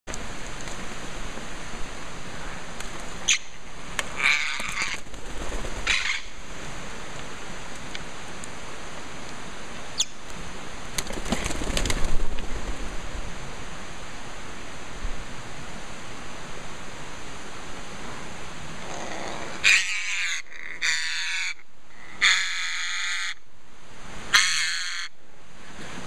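African grey parrots giving about four harsh, rasping squawks, each under a second, over the last several seconds, above a steady hiss of forest ambience. A brief louder knock or rustle comes about halfway through.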